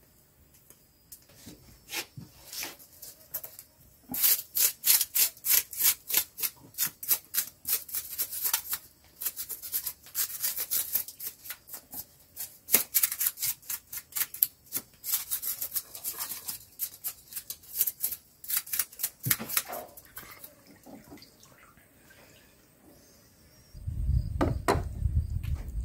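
Rustling and crunching of dry leaves and brush in quick repeated strokes, from about four seconds in until about twenty seconds. A low rumble starts near the end.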